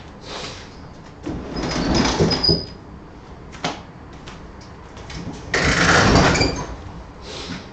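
A window being slid shut in two pushes, each a scraping slide of about a second; the first carries a faint high squeak, and the second, a few seconds later, is louder.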